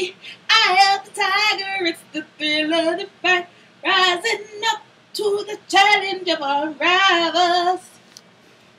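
A woman singing unaccompanied in a high voice with vibrato, in several short phrases, stopping shortly before the end.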